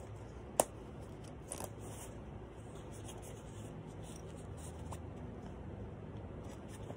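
A handmade fabric clutch wallet being handled and opened out: one sharp click about half a second in, then a couple of faint ticks over a low, steady background.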